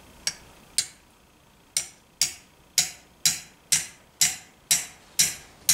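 Small hammer tapping a wrist pin into the piston of a Motobecane AV7 moped engine, metal on metal: two taps, a short pause, then a steady run of about nine light taps, two a second.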